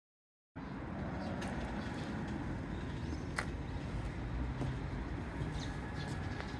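National (Matsushita) CU-A71A3 room air conditioner outdoor unit running: a steady low hum with fan noise, starting about half a second in, with a sharp click about three seconds in.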